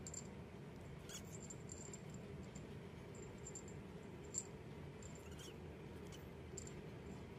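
Young kittens giving a couple of faint, high squeaky mews, about a second in and again past the middle, over a steady low hum with scattered faint high ticks and one short click near the middle.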